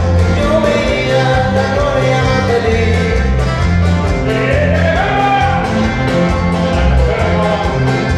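A live dance band playing an upbeat tune, bass notes stepping steadily under a melody that slides up in pitch about four seconds in.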